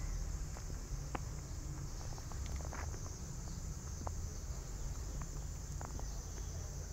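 Newborn kittens crawling on a fabric blanket: a few soft ticks and rustles spread over a steady low rumble and a steady high hiss.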